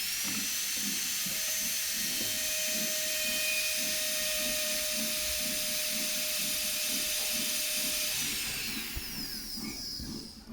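High-speed rotary tool, a small drill or grinder handpiece, whining at a steady high pitch. About eight seconds in its motor is switched off and spins down with a falling whine.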